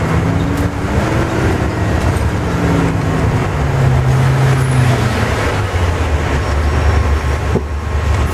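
Volvo double-decker bus running under way, heard from inside the lower-deck cabin: a steady drone of engine and road noise whose engine note rises, then drops and settles lower about halfway through.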